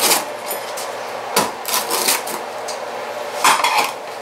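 A pizza cutter wheel rolling through the crisp crust of a freshly baked cheese pizza onto a wooden peel: several crunching, scraping strokes, the loudest near the end.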